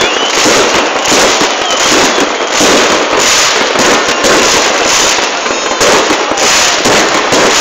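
Many fireworks going off at once: a loud, dense, unbroken crackle of bangs and pops with no pause.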